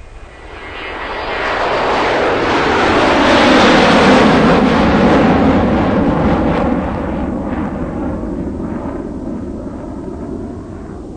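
JCB 3DX backhoe loader's diesel engine driving past, swelling to its loudest about four seconds in, then fading slowly as the machine moves away.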